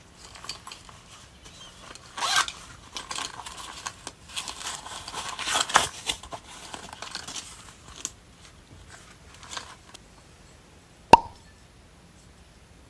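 Plastic packaging being crinkled and torn open by hand in irregular rustling bursts, followed near the end by a single sharp click.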